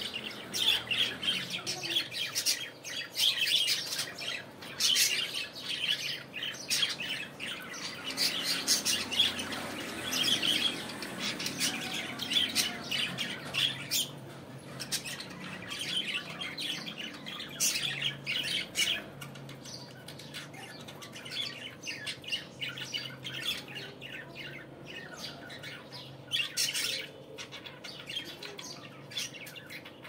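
Several caged budgerigars chattering: many quick overlapping chirps and squawks, busiest in the first twenty seconds and thinning out toward the end.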